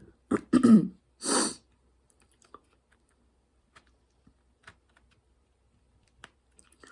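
A woman's few quiet words and a breathy exhale, followed by sparse faint clicks and taps of small handling noise.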